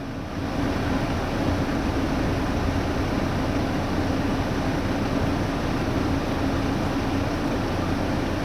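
Mercedes Sprinter van's air conditioning running at maximum: a steady rush of air with a constant low hum underneath, the system cooling hard.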